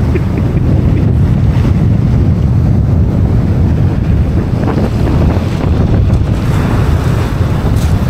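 Wind buffeting the microphone over waves breaking and washing on a shingle beach, a steady, loud, low rumble.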